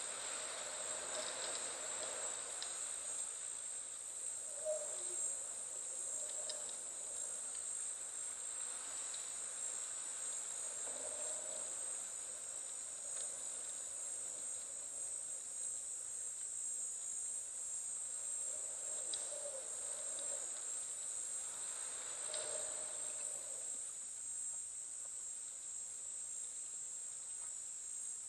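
Steady, high-pitched insect chorus droning without a break, with a few faint, brief sounds now and then beneath it.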